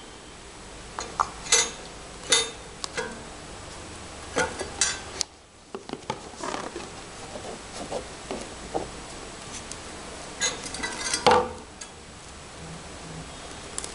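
Clear shrink-wrap plastic film crinkling and rustling as it is folded by hand around a cardboard box, with scattered sharp clicks and taps on the counter. A louder crackle comes late on.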